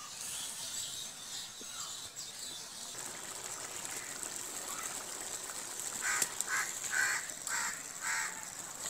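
Fish and bottle gourd curry simmering in a steel karahi, with a steady sizzling hiss. About six seconds in, an animal calls five times in quick succession.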